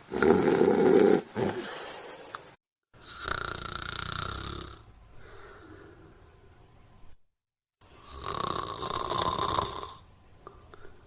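Snoring: three long, rasping snores a few seconds apart, each a second or two long, with sudden dead-silent gaps between some of them where the recording is cut.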